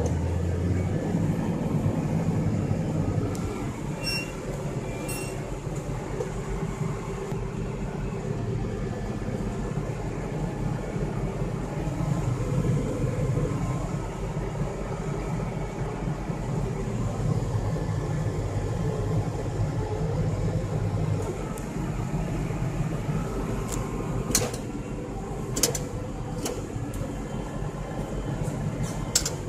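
Case IH Magnum 7140's six-cylinder turbo diesel engine running steadily while the tractor pulls a loaded bale trailer, heard from inside the cab as a deep drone that swells and eases a little. A few sharp clicks and rattles come briefly around four seconds in and again near the end.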